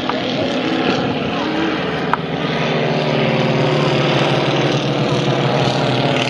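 Propeller-driven piston engines of a replica Fokker Dr.I triplane and a biplane flying overhead, a steady drone that grows louder about three seconds in. Two sharp clicks come near the start and about two seconds in.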